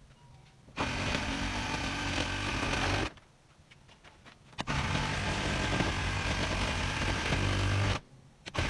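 Handheld electric rug-making tool running in two long bursts of a couple of seconds each, stopping in between, with another burst starting near the end.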